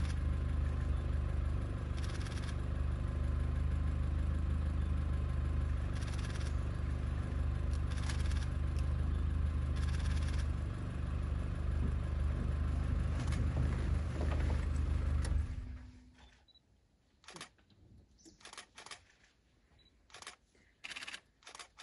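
A vehicle engine idling with a steady low hum, switched off about 15 seconds in; after that, only a few faint short clicks and rustles.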